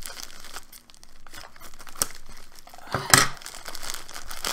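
Scissors snipping into a postal mailer envelope, and the envelope crinkling and tearing as it is cut and pulled open, with a sharp rip about three seconds in.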